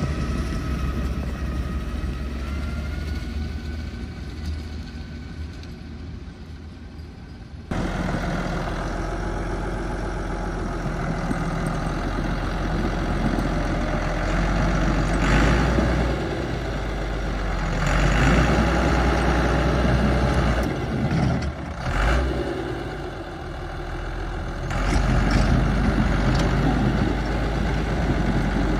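1989 Massey Ferguson 3650 tractor's diesel engine running hard while working a Nokka snowblower, heard first at a distance and fading, then loud and close after a sudden cut about eight seconds in. Its revs rise and fall several times, and it runs louder near the end.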